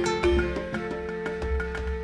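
Background music: a string of short ringing notes, with a long held note coming in under them just under a second in.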